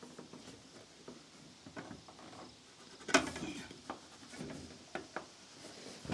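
Scattered light clicks and knocks of sheet-metal roofing being handled and shifted into place, the loudest a knock about three seconds in.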